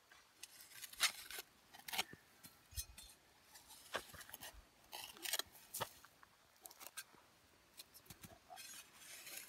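Folding shovel's metal blade scraping and clinking into dry, stony dirt while a hole is dug, in irregular strokes roughly a second apart.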